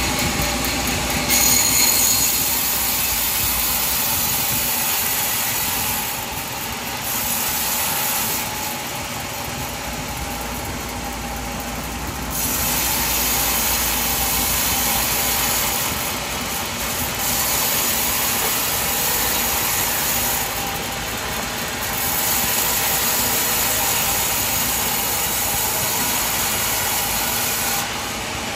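Sawmill machinery running with a saw cutting through a log, a steady loud mechanical noise that shifts abruptly in level every few seconds.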